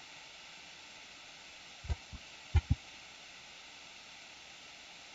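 Computer keyboard spacebar pressed twice, about two seconds in and again half a second later, each press a pair of dull low knocks, over a steady faint hiss.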